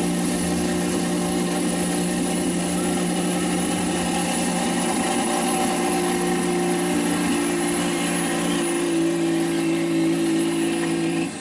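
Second-generation Dodge Ram's 5.9 Cummins turbo-diesel at full throttle, pulling a weight-transfer sled: a loud, steady engine drone with a high whistle over it. The sound drops off sharply at the very end as the truck comes off the throttle.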